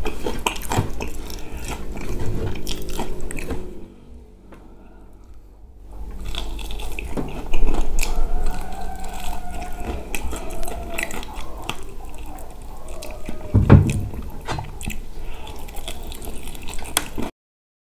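Close-up eating sounds: biting into and chewing fried chicken, with wet lip-smacking and small clicks, and a couple of louder bites.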